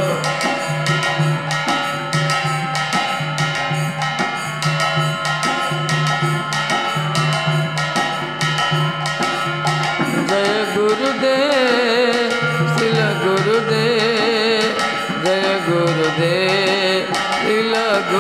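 Devotional kirtan music: a steady held drone with drum and a regular percussion beat, and a man's chanting voice coming in about halfway through.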